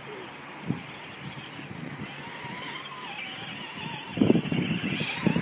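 Electric motor of a Traxxas Stampede VXL brushless RC truck whining as it drives over grass, its pitch wavering with the throttle. It gets louder from about four seconds in as the truck comes close, with a sharp rising whine about a second later.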